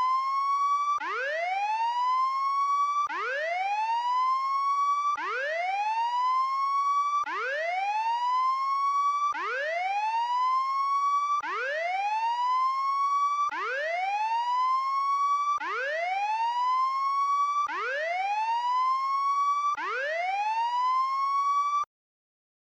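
Electronic whooping alarm used as a prison-break alarm, signalling an inmate escape. Each whoop rises from low to high over about two seconds and repeats back to back, about ten times. It cuts off suddenly near the end.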